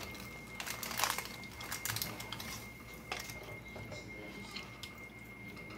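A person biting into and chewing a Taco Bell chalupa with a fried shell: short, crisp crunching clicks at irregular intervals, most of them in the first half.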